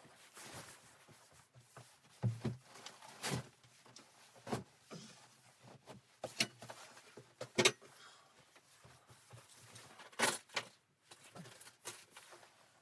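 Irregular knocks and clicks of objects being handled, about a dozen over several seconds, with faint rustling between them.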